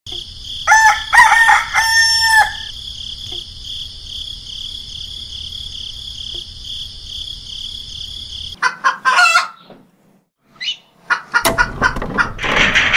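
A rooster crowing once, about a second in, over a steady high-pitched hum that stops about two-thirds of the way through. A few sharp clicks follow, and a rough, noisy whir starts near the end.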